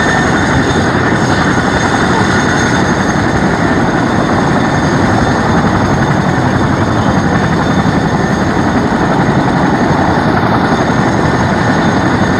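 Boeing CH-47 Chinook tandem-rotor helicopter running on the ground with both rotors turning: a loud, steady rotor and twin turboshaft engine noise, with a thin high whine above it.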